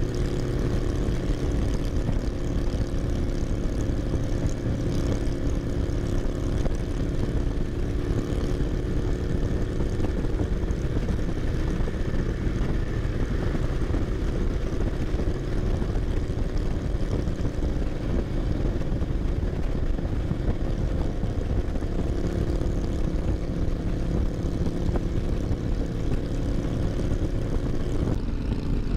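Harley-Davidson Ultra Limited's Milwaukee-Eight 114 V-twin running steadily while riding along at a constant pace, with a heavy low rumble under it.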